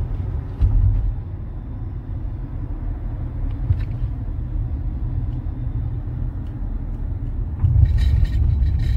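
Low rumble of road and engine noise inside a moving car, with a brief louder bump about half a second in and a louder stretch near the end.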